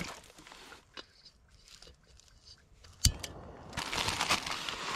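Plastic bacon packaging crinkling and gear rustling, quiet at first. There is a sharp click about three seconds in, then louder, denser crinkling.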